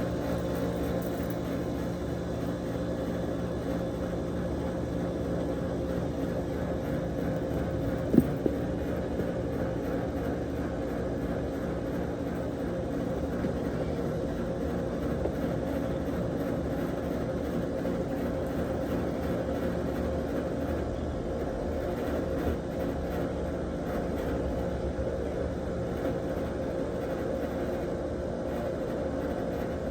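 Steady machine hum with a few faint steady tones, broken by a sharp click about eight seconds in.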